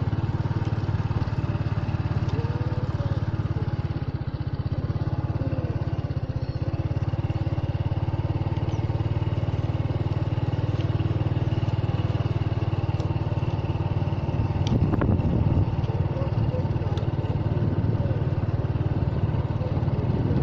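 An engine running steadily at an even speed, with a brief louder clatter about fifteen seconds in.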